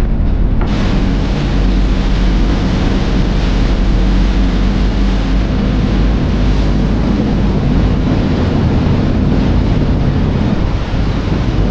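River boat ride: a steady low engine rumble under a rush of water and wind buffeting the microphone.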